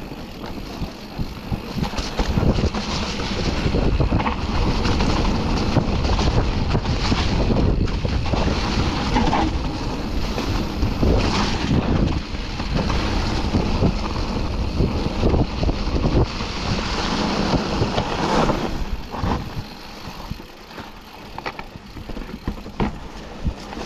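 Mountain bike ridden over a muddy, leaf-covered trail: tyres rolling through wet leaves and mud, the bike rattling and knocking over bumps, with wind buffeting the camera microphone. It eases off and gets quieter for the last few seconds.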